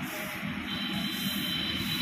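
Palms rubbing and pressing across a laminate (sunmica) sheet to bed it onto glued plywood, a steady dry rubbing sound.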